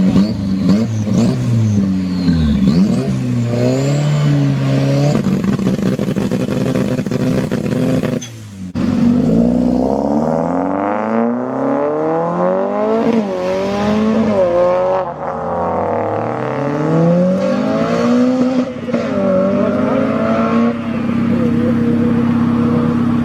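Modified car engines revving and accelerating, the engine note climbing and dropping back again and again, with a steadier drone near the end.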